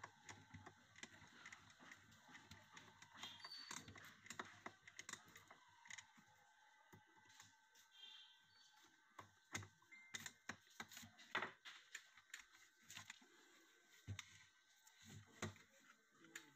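Near silence broken by faint scattered clicks and light taps: a screwdriver and a wooden speaker-cabinet panel being handled during bench repair work.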